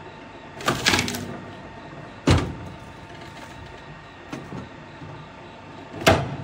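Wood-splitting machine running steadily, with three loud sharp cracks and knocks as logs are split and handled: one under a second in, one a little after two seconds, and one near the end.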